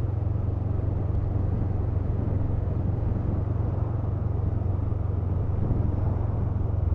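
Honda CMX500 Rebel's parallel-twin engine holding an even, steady drone at a constant cruising speed, with wind and road noise over it.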